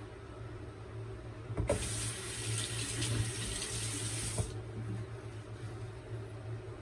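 Bathroom tap running into the sink for about three seconds. It is turned on suddenly about a second and a half in and shut off sharply.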